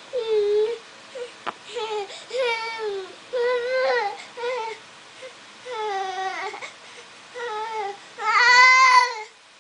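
A toddler whining and crying in short high-pitched cries, one after another, with a louder, longer cry near the end.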